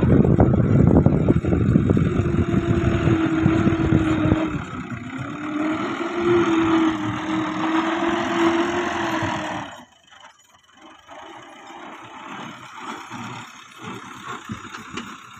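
Fiat 640 tractor's diesel engine working under load as its front blade pushes soil, with a steady whine over the engine's rumble. About two-thirds of the way through, the sound drops suddenly to a much quieter, uneven rumble.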